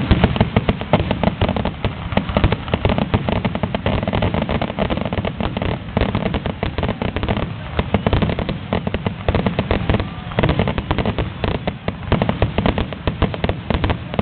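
Fireworks display going off in a dense, continuous volley of rapid bangs and crackles with a low rumble beneath, without a pause.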